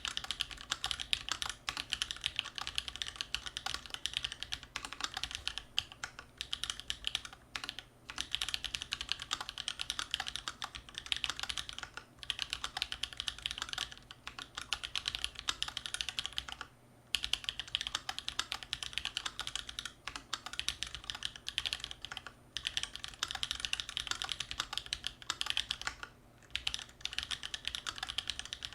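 Continuous fast typing on a custom mechanical keyboard with Holy Panda tactile switches in a steel plate and GMK keycaps: a dense run of clicky keystrokes, broken by brief pauses, the longest about seventeen seconds in.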